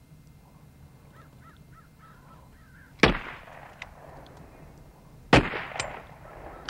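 Crows cawing in short series, then two loud gunshots about two seconds apart, each trailing off.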